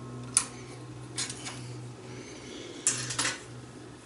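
Knife-sharpening gear being handled: a sharp click about a third of a second in, then two short bursts of knocks and clatter about a second and three seconds in. A steady low hum runs underneath.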